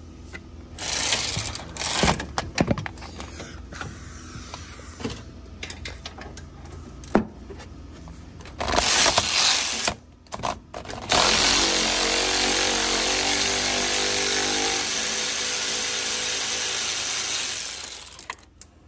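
Power ratchet running in a few short bursts, then steadily for about six seconds, turning a front shock-mount bolt while a wrench holds the nut on the other side. Small metal clinks of tools between the runs.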